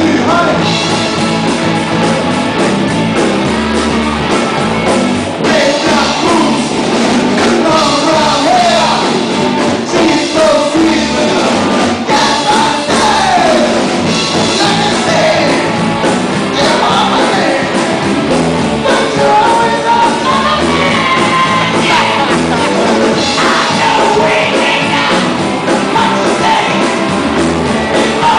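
A live rock band playing loudly: electric guitar, bass and drums, with a voice singing and shouting over them.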